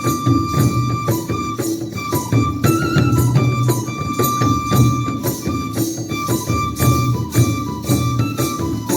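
Bodo traditional ritual dance music: a high melody line, often held on long notes, over a steady drum and percussion beat.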